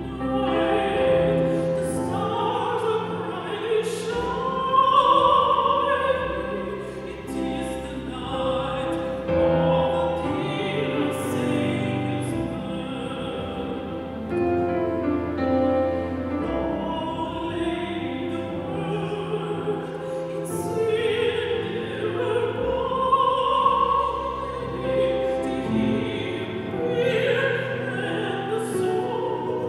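Live classical-style singing with instrumental accompaniment: a voice holding long notes over sustained chords.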